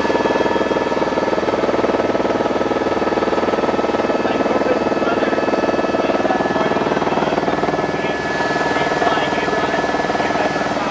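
Eurocopter helicopter in flight, heard from inside the cabin: a loud, steady drone of the turbine and rotor with several steady high whining tones over it.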